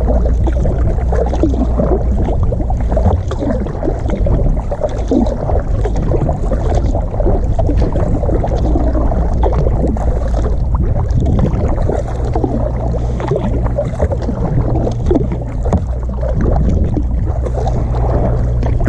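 Water splashing and gurgling around a kayak as it is paddled, over a steady low rumble.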